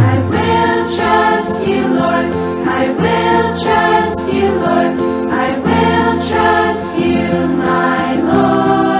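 Children's choir singing a Christian praise song over steady instrumental backing.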